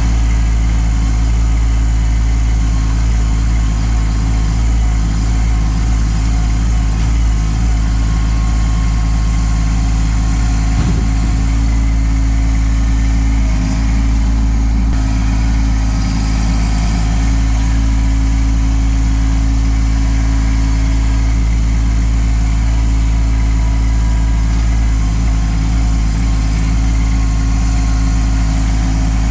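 Kubota LX2610 compact tractor's three-cylinder diesel engine running steadily at a constant speed.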